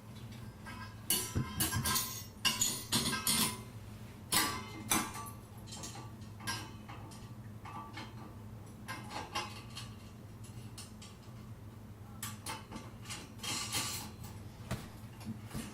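Metal sauna parts clinking and rattling as they are handled: the bulb guards, their wires, washers and nuts being fitted through slots in the base and finger-tightened. The clinks come in irregular clusters, busiest in the first few seconds and again near the end, over a low steady hum.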